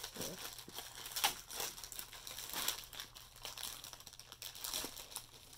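Clear plastic bag crinkling in irregular bursts as hands pull it open.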